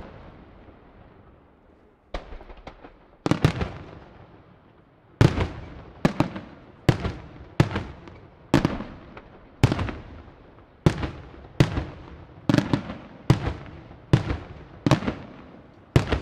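Aerial firework shells bursting in the sky. After a lull, a few sharp reports come about two seconds in, then a steady run of booms about one to two a second, each trailing off in an echo.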